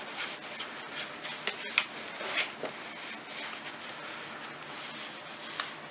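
Metal circular knitting needles clicking lightly and yarn rubbing over them as stitches are worked, a few soft scattered ticks over a faint hiss.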